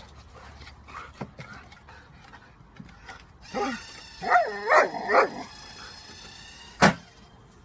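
Yellow Labrador retriever whining and yipping in several excited cries that rise and fall, over the steady high whine of an automatic dog-ball launcher running. Near the end the launcher fires the tennis ball with one sharp thump.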